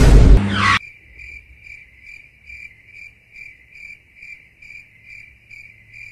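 Cricket chirping sound effect: an even, high chirp repeating about two and a half times a second, starting abruptly after a loud whooshing hit that cuts off under a second in. It is the comic 'awkward silence' cue.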